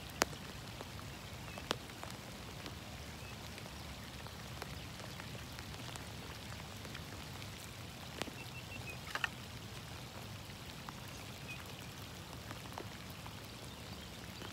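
Steady light rain falling, with a few sharp ticks of drops or small knocks close to the microphone.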